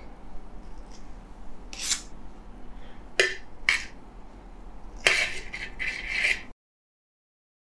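Metal palette knife scraping through whipped cream and against an aluminium cake turntable: short scrapes about two, three and three and a half seconds in, then a longer scrape around five to six seconds. The sound then cuts off suddenly.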